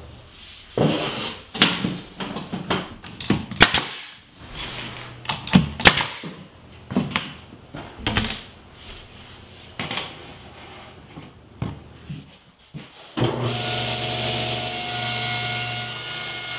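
Work on wooden trim: scattered knocks, taps and clicks, a few of them sharp. About 13 seconds in, a table saw switches on suddenly and runs steadily.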